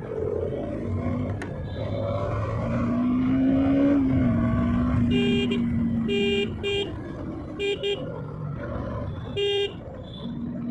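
Motorcycle engine and road noise while riding through city traffic, the engine note rising and then holding steady. A vehicle horn honks in about six short blasts over the second half.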